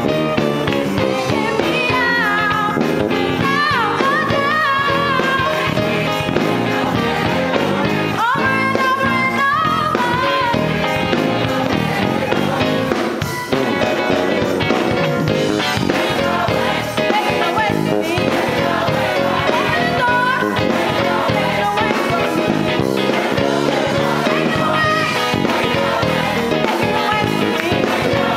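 Gospel choir singing with live instrumental backing, with sung lines that bend up and down over a steady accompaniment.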